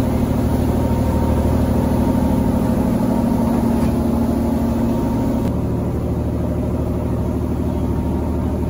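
A boat's inboard engine running steadily, heard on deck as a loud, even, low drone with a hum in it. Its tone shifts slightly about five and a half seconds in.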